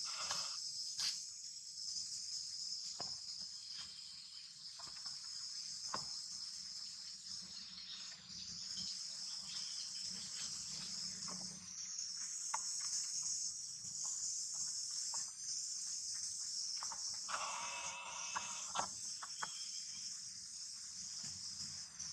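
Steady high-pitched buzz of an insect chorus, with scattered faint crackles of dry leaves. A short pitched call lasting about a second comes near the end.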